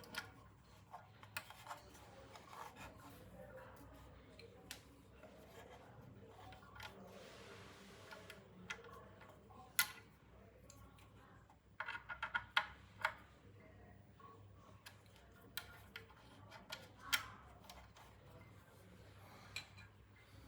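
Faint, scattered clicks, taps and rubbing of hands and small tools working on a pump's pressure switch fitting, with a quick run of sharp clicks about twelve seconds in.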